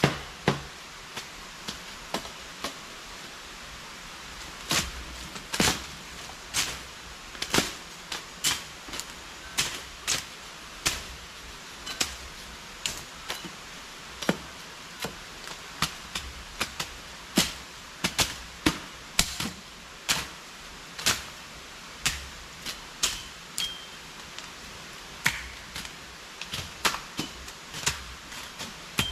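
Machetes chopping through brush and saplings: sharp, irregular cuts, about one to two a second and varying in loudness, from more than one person working at once.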